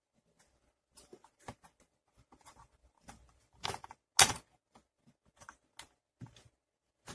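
Knife blade prying and scraping at the small plastic hinge cap on a JIE-STAR Air Musha X9 drone's propeller arm: scattered light clicks and scrapes, with a sharp click about four seconds in as the blade slips or catches.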